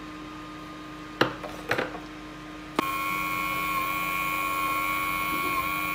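Scoopy ice electric ice-cream maker running with a steady hum while churning ice-cream mix; two short knocks about a second in, then a sharp click as its lid shuts, after which a louder, steady motor whine takes over.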